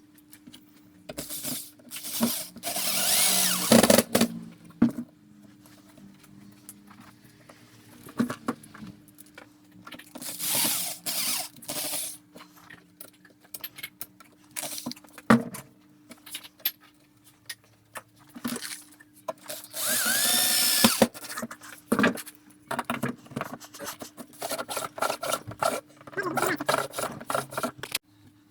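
Power drill run in three short bursts of a second or two each, with knocks and clicks of parts being handled in between.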